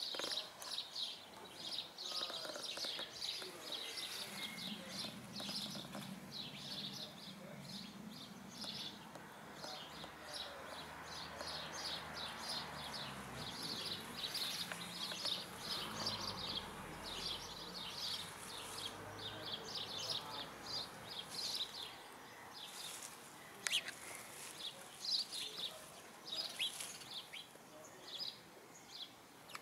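Small birds chirping continuously in a quick run of short high notes, with a few louder, sharper notes near the end.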